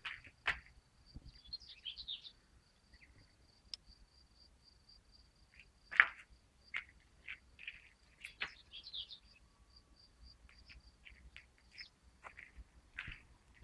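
Outdoor birdsong: scattered short bird chirps over a high, steady pulsing insect trill. One sharp sound about six seconds in is the loudest moment.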